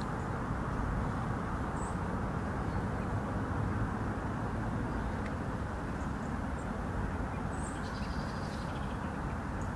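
Outdoor ambience: a steady low rumble of background noise, with a couple of short high bird chirps, one about two seconds in and one near the end.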